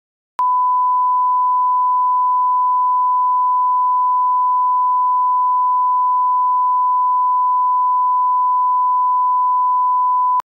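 Bars-and-tone test signal: a 1 kHz line-up tone played with SMPTE colour bars. It is one steady, pure beep that starts a moment in and cuts off sharply near the end.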